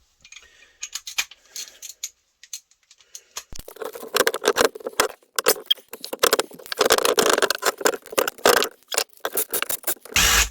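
Hand ratchet with an extension bar clicking in quick runs as the differential's bolts are turned out. There is a louder knock just before the end.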